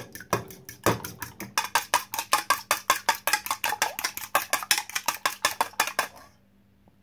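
Metal fork beating raw eggs in a ceramic bowl: a fast, even clatter of the tines striking the bowl, about six strokes a second. It stops about a second before the end.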